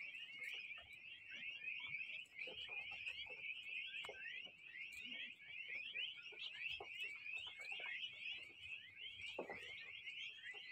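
A flock of Indian peafowl chicks peeping together, many thin high chirps overlapping into a continuous chatter, with faint scattered clicks as they peck at feed.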